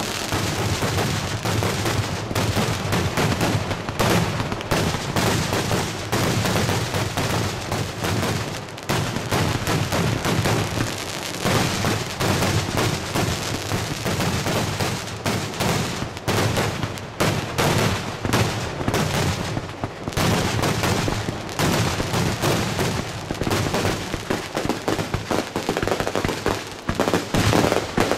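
Weco 500 g firework cake firing a fast, unbroken barrage of shots, its launches and star bursts running together into a dense string of sharp bangs and crackles.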